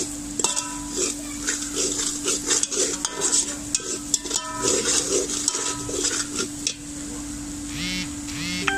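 A slotted metal spatula scrapes and clanks against a steel pot while stirring browned onions and spices frying in ghee. Many of the strikes leave a short metallic ring, and a light sizzle and a steady low hum run underneath. Near the end comes a brief voice-like call and one more ringing clank.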